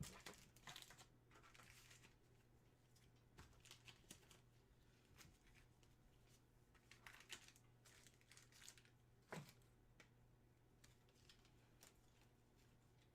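Faint crinkling and rustling of packaging being handled, with scattered soft clicks and one sharper knock about nine seconds in, over a low steady hum.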